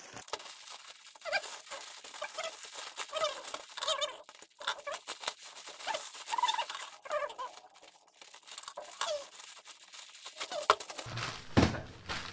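Plastic courier mailer bag being pulled, torn open and crinkled by hand, a steady patter of crackles with many short squeaks as the plastic stretches.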